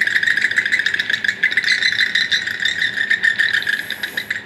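A spooky sound effect played back from an Arduino MP3 player shield, set off by its passive infrared motion sensor: a loud, dense rattling buzz made of very fast clicks that holds steady throughout.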